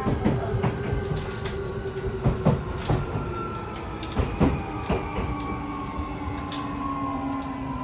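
Keio 1000 series electric train heard from inside the car: the Toyo Denki IGBT VVVF inverter and its traction motors whine in several tones that fall slowly in pitch as the train slows. Wheels knock over rail joints about eight times in the first five seconds.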